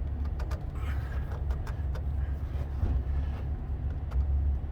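Low rumble, with a few faint clicks and rubbing as a spin-on oil filter is tightened by hand.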